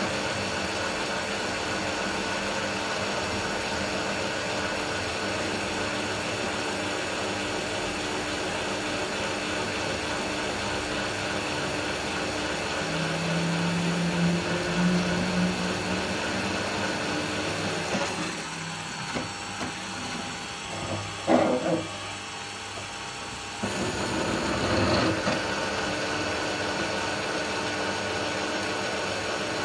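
Bosch bench drill press running steadily as a twist bit is fed down into a metal plate. A low tone joins in for a few seconds near the middle. Later the running noise drops for about five seconds, with a sharp knock, then comes back at full level.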